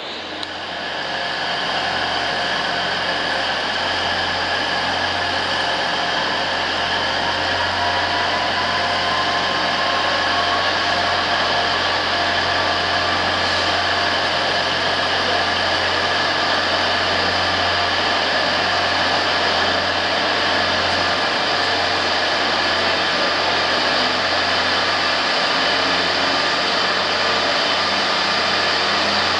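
Diesel train engines running steadily: a continuous low hum with a steady high whine, rising over the first two seconds and then holding level.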